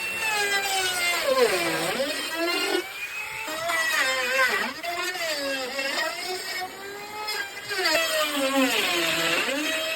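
Woodworking power tool's electric motor whining, its pitch repeatedly sagging under load and climbing back as it cuts.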